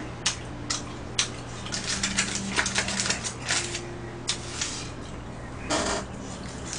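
Wooden chopsticks clicking and tapping against plastic takeout containers and a paper food box, a quick irregular run of light clicks, with a brief rustle near the end.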